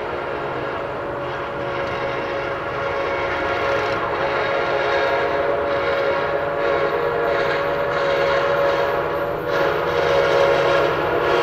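Nathan K5LA five-chime air horn on an Amtrak F59PHI locomotive sounding one long held blast, growing louder as the train approaches.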